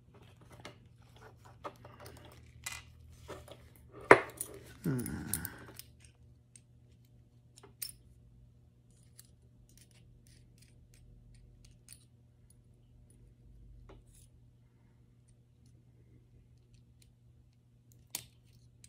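Small metal parts of a Colt Pre-Woodsman pistol clicking and clinking as they are handled and fitted, with one sharp click about four seconds in, then only faint scattered ticks and a couple of isolated clicks.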